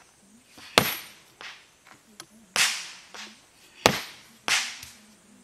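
Sledgehammer striking rock: four sharp cracking blows about a second or two apart, with lighter knocks in between.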